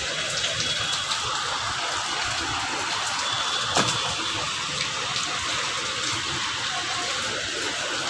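Water running steadily with an even hiss, with a few light clicks and one sharper knock a little under four seconds in.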